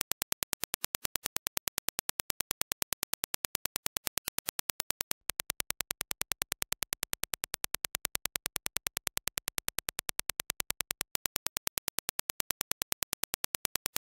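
A rapid, evenly spaced train of sharp test-signal clicks, several a second: the reference Dirac impulse. About five seconds in it breaks briefly and carries on as the same impulse train played through Hifiman Sundara 2022 planar headphones and recorded on a dummy head. About eleven seconds in it breaks again and returns to the reference impulse.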